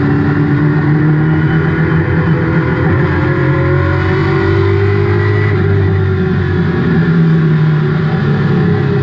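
Race car engine heard from inside the cockpit, running hard under racing load. Its pitch climbs steadily for about five seconds, falls back around six seconds in, then climbs again.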